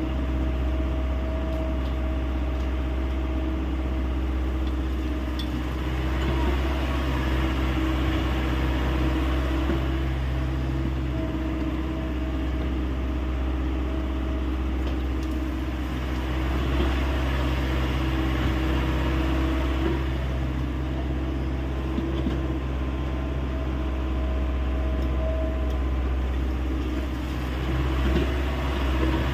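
Hyundai 85A excavator's diesel engine running steadily under work, with a higher tone that comes and goes several times and slight swells in loudness.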